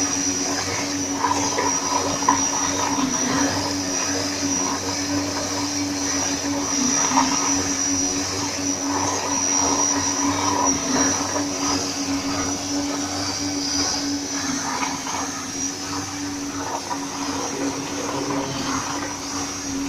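Small electric conveyor drive motors of a pick-and-place dual-conveyor prototype running steadily, a constant hum with a high whine over it.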